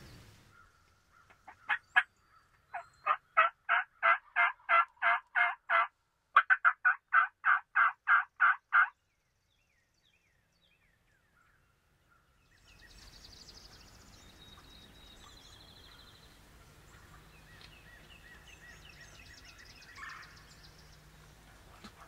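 Wild turkey yelping: two long runs of short, evenly spaced yelps, about three a second, the second run breaking off abruptly. Faint outdoor air with songbirds chirping follows.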